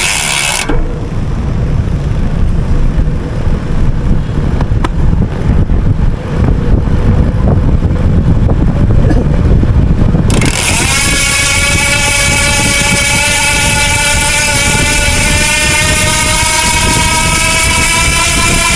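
Yamaha Sniper motorcycle being ridden, with wind rumbling on the rear-mounted microphone. About ten seconds in a steady engine and exhaust note takes over, its pitch slowly rising as the bike pulls at high revs.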